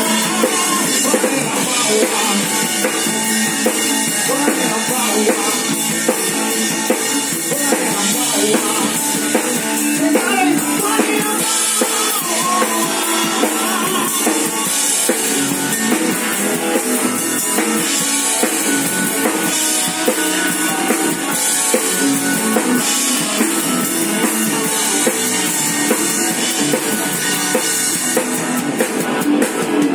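Live band playing a rock song, with the drum kit loudest: steady kick, snare and cymbal strokes under keyboard and guitar, heard from right beside the drums.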